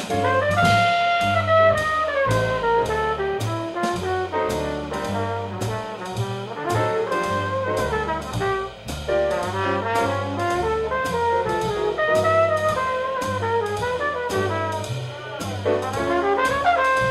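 Live jazz quintet: a trumpet plays a solo line of quick runs over piano, a walking upright bass and a drum kit keeping time with evenly spaced cymbal strokes.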